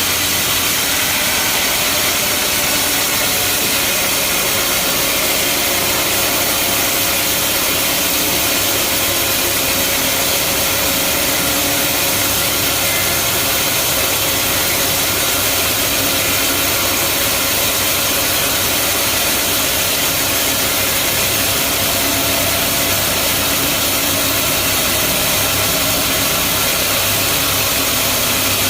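Bandsaw sawmill running: a loud, even machine noise that holds steady without change.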